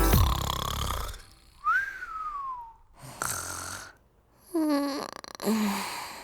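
Backing music ends, then comic snoring: a whistling breath that rises and then slowly falls in pitch, a short rasping breath, and two short snorts with a falling pitch near the end.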